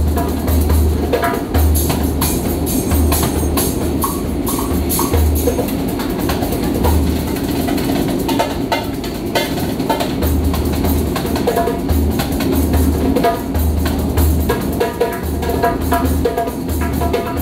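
Hand drum played with bare hands: deep bass strokes mixed with sharp high slaps in a quick, continuous rhythm, over the steady hum of a moving metro carriage.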